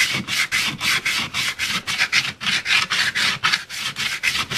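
Sandpaper on a hard sanding block rubbed back and forth over cured Bondo body filler on a small curved metal part, about four quick scraping strokes a second: block-sanding the filler down to take off the high spots before primer.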